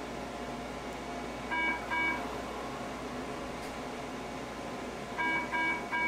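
SWIFT microwave wart-treatment machine beeping: two short electronic beeps about one and a half seconds in, and two more near the end, over a steady background hum.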